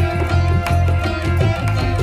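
Instrumental background music with a steady low bass beat.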